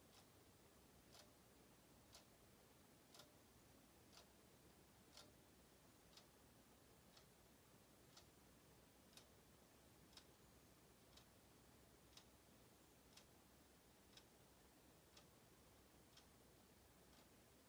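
Wall clock movement ticking faintly and evenly, about once a second.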